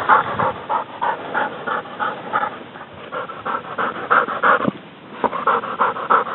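Hunting dog panting hard in quick, even breaths, about three to four a second, with a brief pause about three-quarters of the way through before the panting picks up again.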